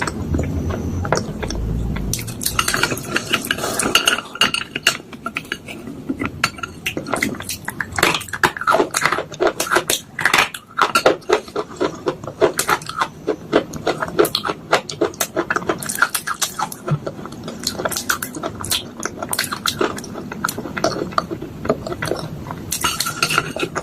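Spoon clinking and scraping against a bowl in quick, irregular strokes, crushing soaked slate pencils, chalk and clay.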